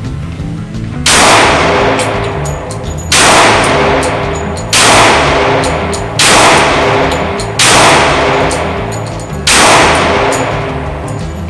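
Six shots from a Glock G30S .45 ACP pistol, fired at a slow, irregular pace roughly one and a half to two seconds apart, each ringing out in a long echo in an indoor range. Background music plays underneath.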